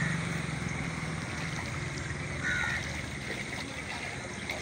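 Outdoor ambient noise with a low rumble that fades out over the first two seconds, and one short bird call about two and a half seconds in.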